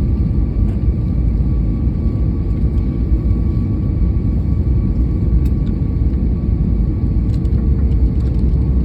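Steady airliner cabin noise on approach to landing: a constant low rumble of engines and airflow with faint steady tones, heard from inside the cabin.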